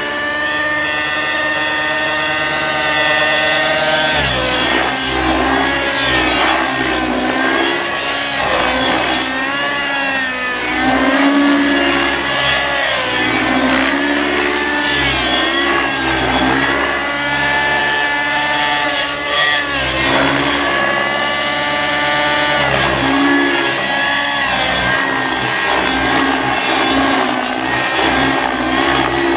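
Aeolus 50 nitro RC helicopter flying: its two-stroke glow engine and rotor blades run at a high whine whose pitch keeps rising and falling as the helicopter is thrown through aerobatic manoeuvres.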